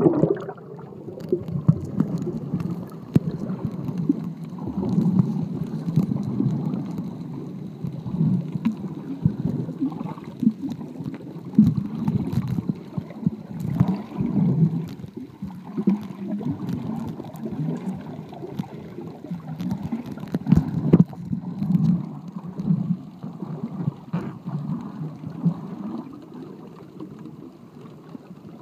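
Muffled underwater sound picked up by a submerged microphone: a low, churning rumble of water moving around it, swelling and fading irregularly, with a faint steady high tone behind it.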